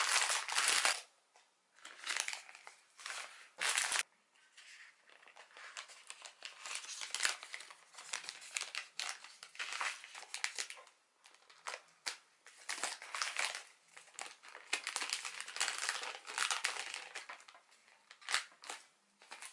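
Small clear plastic packaging bags crinkling and rustling in irregular bursts as they are handled and filled one by one.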